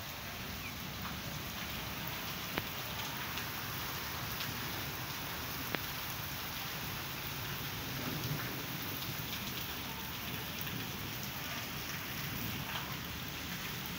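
Steady rain falling on a paved courtyard, with a few sharp drip ticks close by.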